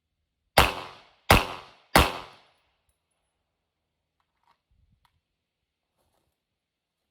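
Three 9mm pistol shots from a Glock 19, fired in quick succession about two-thirds of a second apart, each with a short ringing decay.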